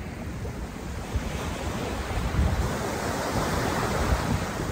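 Small surf breaking and washing up a sandy beach, with wind buffeting the microphone. The wash swells from about two seconds in.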